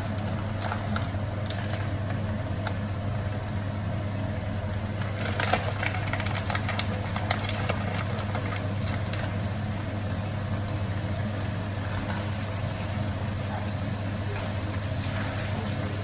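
Onions hissing as they cook in a pan, over a steady low electrical hum, with a few light clicks scattered through, busiest in the middle.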